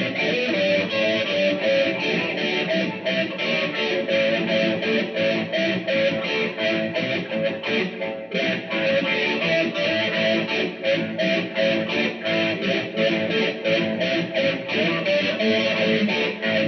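Guitar playing a blues tune, plucked and strummed in a steady, even rhythm.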